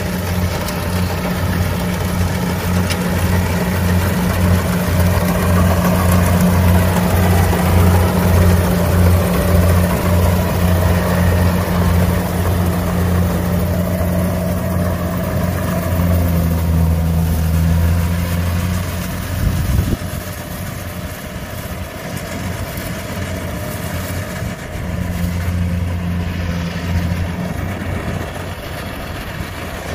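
Rice combine harvester's engine running steadily while harvesting, a loud, even drone. The sound changes abruptly and gets somewhat quieter about twenty seconds in.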